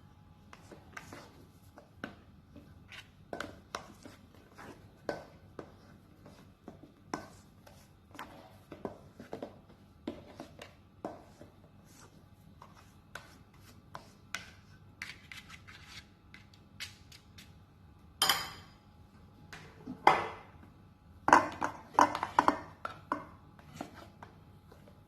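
Kitchen utensil knocking and scraping against a mixing bowl in a run of irregular taps, the loudest ones bunched together in the last third.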